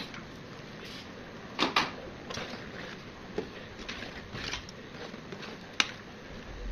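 Metal ladle stirring rice porridge with pork in a large metal pot, with several sharp clinks of the ladle against the pot, two of them close together, over a steady low hiss.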